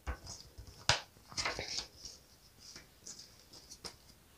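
Paper catalogue and plastic packaging being handled by hand: light rustles and taps, with the sharpest tap about a second in and a short cluster of rustling just after.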